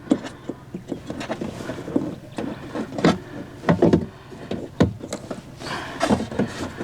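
Irregular plastic clicks, knocks and rustling from hands working the electrical plug onto the window regulator motor inside a car door.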